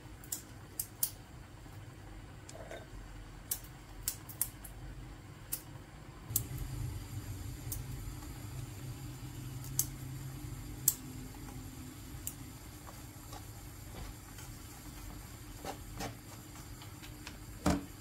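Wooden spoon stirring grated apple, sugar and walnuts in a non-stick frying pan. Scattered light knocks of the spoon against the pan are heard over a faint low hum that comes in about six seconds in.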